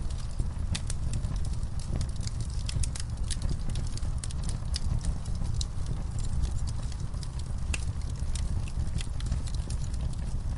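Wood logs burning in a fireplace: a steady low rumble of the flames with frequent, irregular sharp crackles and pops.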